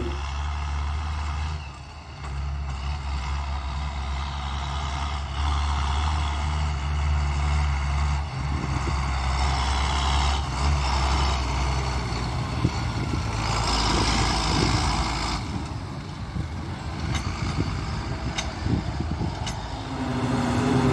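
John Deere tractors' diesel engines pulling silage wagons, a steady low drone. The drone briefly grows louder past the middle as a tractor and wagon come closer.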